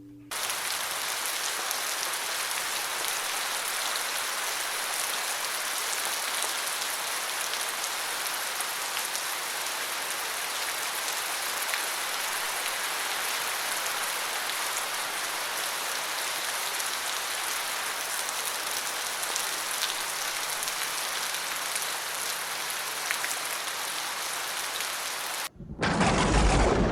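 Steady rain falling, then a sudden loud clap of thunder that starts rumbling near the end.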